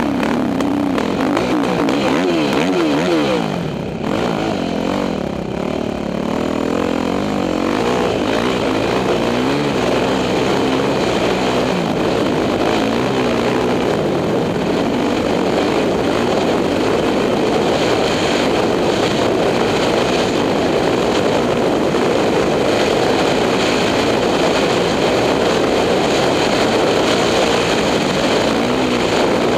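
2006 Yamaha YZ450F's four-stroke single-cylinder engine running under load while the dirt bike is ridden. The revs rise and fall over the first few seconds, ease off briefly about four seconds in, then stay high and fairly steady.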